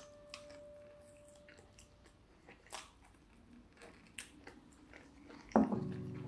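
A person chewing and biting into roast chicken, close to the microphone, with scattered small crunching and smacking clicks. Near the end a sudden loud low-pitched sound cuts in and holds.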